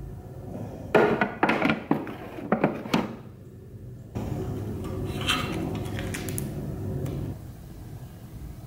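Clear acrylic organiser box being handled and set down on a desk: several sharp hard-plastic knocks and clatters over a couple of seconds, followed by a few seconds of softer rustling as cards and plastic sleeves are handled.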